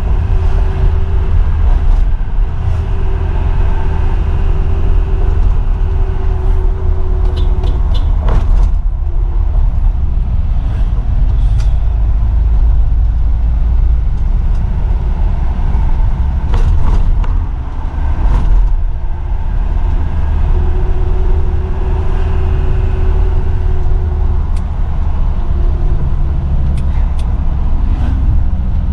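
Isuzu Elf NKR 55 microbus's diesel engine running under way, heard from inside the cab: a loud, steady low rumble with a whine that fades in and out. A few sharp clicks or knocks come about a third of the way in and again just past halfway.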